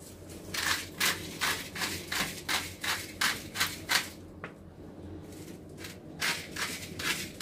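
Rhythmic rasping strokes, about three a second, as salt is worked onto a raw salmon fillet being cured. The strokes stop for about two seconds after the first run and start again near the end.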